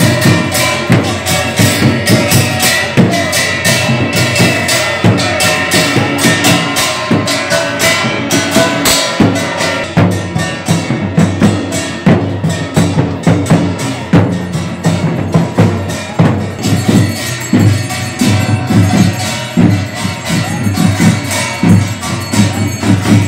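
Matua devotional band music: drums beaten fast and continuously with clashing metal percussion. A wavering melody line rides over it through the first half.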